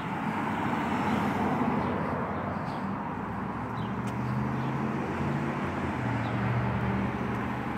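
Street traffic: cars passing on a city street, their tyre and engine noise swelling as one passes about a second in. A low engine hum joins from about four seconds in.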